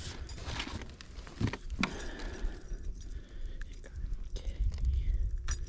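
Handling noise as a fish is taken out of a mesh landing net: scattered clicks and light clinks of lure and gear over a steady low rumble.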